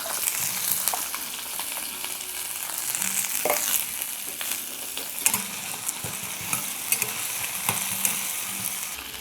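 Onion, garlic, curry leaves and tomato sizzling in a little oil in a small pan as they are sautéed. A spoon scrapes and stirs them a few times, with a steady hiss and scattered crackles.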